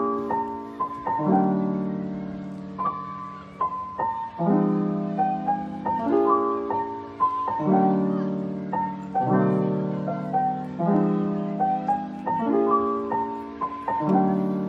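Background music: a piano tune with chords struck about every second and a half.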